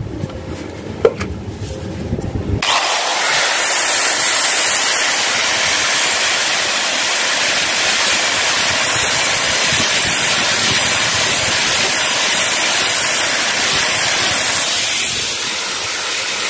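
Handheld angle grinder grinding the sharp metal edges of a new drum brake shoe round, so that the shoe seats snugly on the brake's pivot. The steady, harsh grinding starts suddenly about two and a half seconds in and eases slightly near the end.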